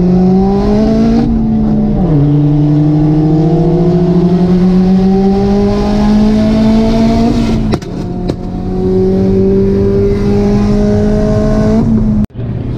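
Big-turbo Volkswagen Jetta engine at full-throttle acceleration, heard from inside the cabin: the revs climb, fall at a gear change about a second and a half in, then climb steadily again. Near eight seconds a few sharp clicks and a brief dip break in, after which the engine runs on at high revs; the sound cuts off abruptly just before the end.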